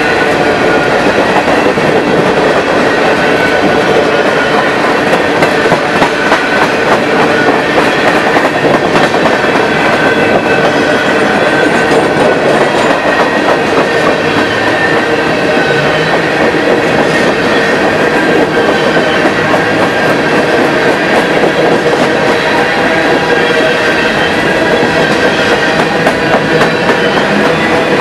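Freight train of open-top hopper cars rolling past at close range: steel wheels clicking over the rail in a dense, continuous rhythm, with steady ringing tones over the rumble.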